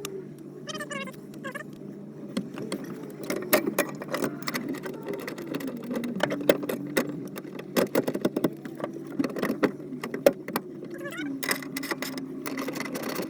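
Hand tools and bolt hardware clicking and clinking in irregular sharp strokes, some in quick runs, as a harness bar is bolted into a car's seat-belt mounts.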